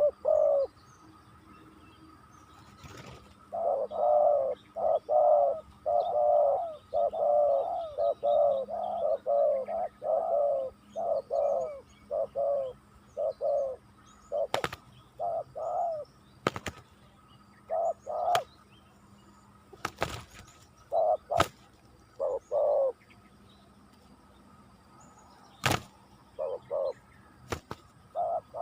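Spotted doves (tekukur) cooing in many short repeated phrases, a lure bird and a rival answering each other, thickest from a few seconds in until shortly past the middle. Several sharp clicks stand out among the calls.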